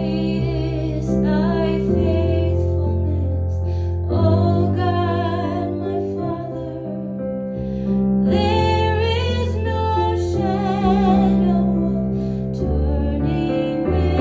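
Slow, gentle song: a solo singer with vibrato, phrase by phrase, over sustained piano or keyboard chords.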